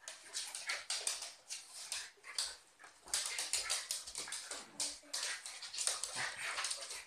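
A cocker spaniel puppy and a West Highland white terrier play-fighting: a rapid run of scuffles, scrabbling claws on a wooden floor and short dog noises, getting busier from about three seconds in.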